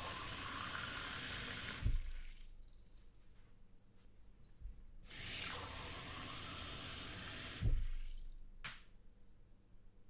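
Water running from a kitchen tap into a glass at a stainless steel sink, twice, each run a steady two to three seconds and ending in a short thump. A small click comes near the end.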